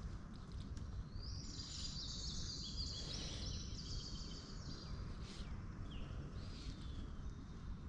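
A songbird singing a quick run of high, stepped notes for about two and a half seconds, starting about a second in, then a few shorter high calls, over a steady low outdoor rush.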